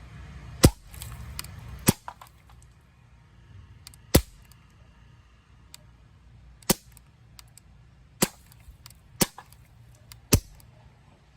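CO2 BB gun firing seven sharp pops at uneven intervals, a second or so apart, with a few much fainter clicks between them.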